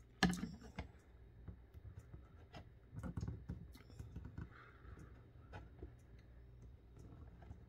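Small clicks, taps and light scrapes of hands handling a plastic action figure and fitting a tiny sword piece into its hand. A sharp knock right at the start is the loudest, with a busier run of clicks about three seconds in.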